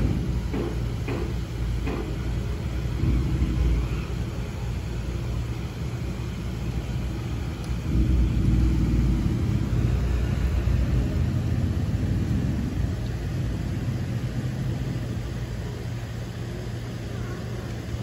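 Low rumble of street traffic, swelling about three seconds in and again around eight to ten seconds in, with a few light clicks in the first two seconds.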